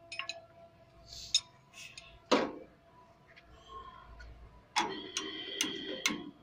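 Metal tool clinking and knocking against the hydraulic lift linkage of a Mahindra 575 tractor. A few scattered clinks and one sharp knock about two and a half seconds in, then, from near five seconds on, a quick run of ringing metal taps, about two or three a second.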